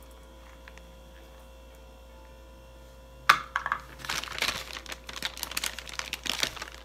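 A sharp click about three seconds in, followed a moment later by a couple of seconds of dense, rapid crinkling and rustling.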